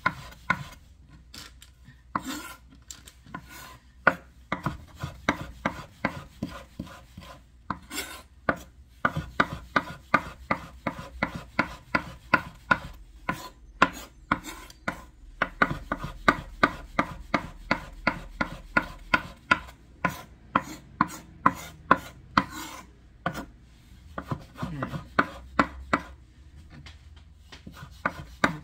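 Knife chopping Italian parsley: quick runs of strikes, about three a second, broken by short pauses.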